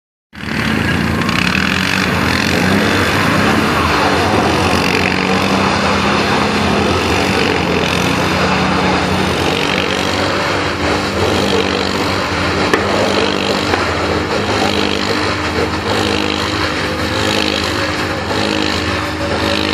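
ATV engine running steadily, with a constant noisy rush over it.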